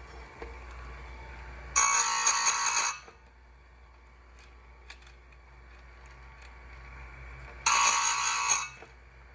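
Bench-mounted chainsaw chain grinder touching up saw-chain cutters: two passes of the grinding wheel on a tooth, each about a second long with a high, ringing rasp, about two seconds in and again near the end. Between passes there is a low steady hum and a few light clicks. The chain is already fairly sharp, so each pass takes off very little.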